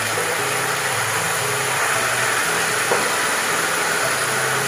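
Jujube pickle frying in hot mustard oil with garlic in a wok: a steady sizzling hiss.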